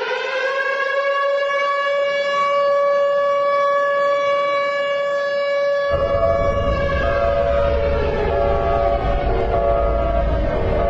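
Civil-defence-style warning siren holding a steady wail after winding up. About six seconds in, a low rumble starts suddenly and the tone begins to waver.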